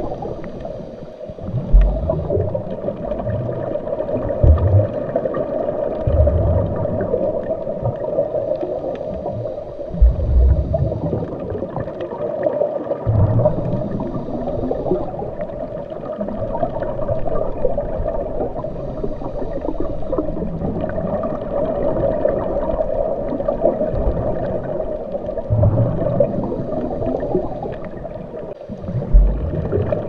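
Continuous gurgling, bubbling water heard as if underwater, with irregular low rumbles coming and going.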